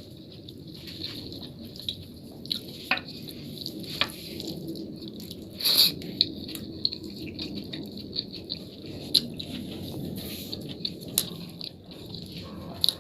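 Close-miked chewing and mouth sounds of someone eating a dal bhat meal with meat, with scattered small clicks and smacks throughout, one louder one about six seconds in.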